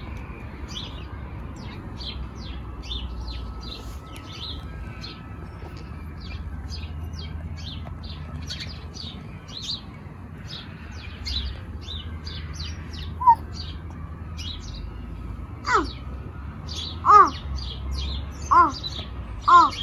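Small garden birds, house sparrows, chirping busily, several short chirps a second. Near the end come four louder short calls that rise and fall.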